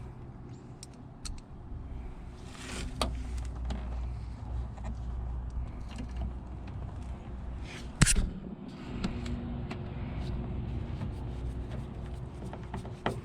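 Small clicks and scrapes of a hand screwdriver and mirror parts being worked while screws are driven into a side-mirror mount, with one sharp click about eight seconds in, over a steady low hum.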